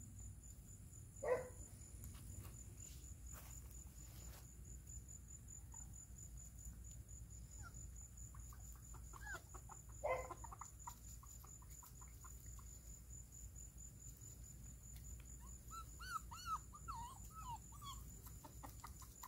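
Domestic hens clucking softly, a run of short repeated clucks in two spells, with two louder single calls, one about a second in and one about ten seconds in.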